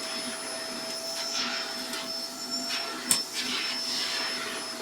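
Vacuum cleaner running steadily with a constant motor whine, with a single sharp click about three seconds in.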